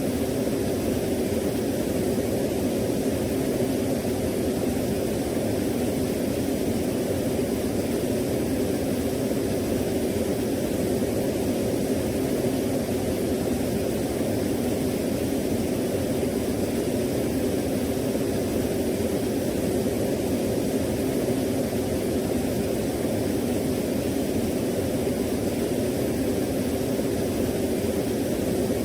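Steady, unchanging rushing noise of a waterfall, deep and dull in tone.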